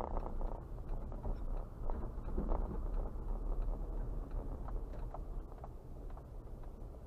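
Car driving slowly, a steady low engine and road rumble heard from inside the car, with faint scattered ticks and knocks.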